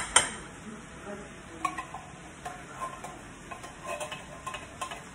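Seasoning shaker being shaken over a skillet of chicken pot pie filling: a quick run of loud rattling shakes at the start, then lighter scattered shakes and taps.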